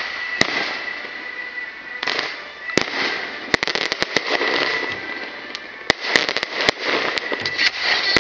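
Aerial fireworks bursting in sharp bangs over a continuous hiss. There are a few scattered bangs at first, then a quick run of them from about three and a half seconds in, and more close together near the end.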